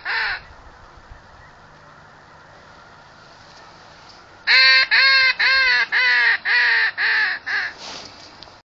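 Goose honking: one honk ends just as it begins, then after a quiet pause comes a quick, loud series of about nine falling honks, roughly two or three a second.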